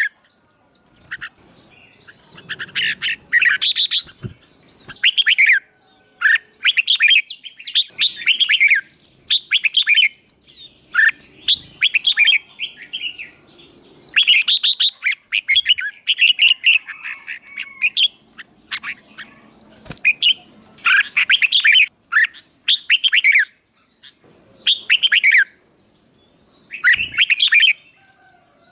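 Caged songbird singing in repeated bursts of quick, whistled phrases with short pauses between them. It is being worked up to sing combatively, as in training for a singing contest.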